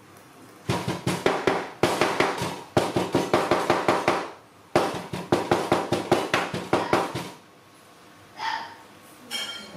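Baby macaque gnawing and knocking at a hard plastic toy crocodile: two runs of rapid clicks and taps, each a few seconds long, then a few scattered softer knocks.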